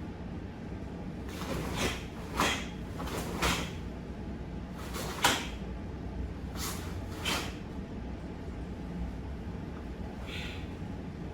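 Quick swishes and slaps of two karateka's uniforms and limbs as they work through partner kata applications: about nine short, sharp bursts, unevenly spaced, over a low steady room hum.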